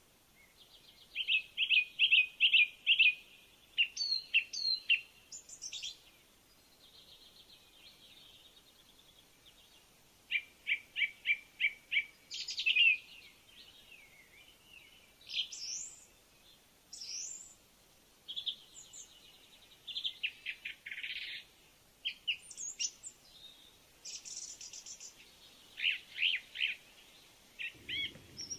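A songbird singing: phrases of fast repeated notes and short whistled slurs, each a second or two long, separated by brief pauses.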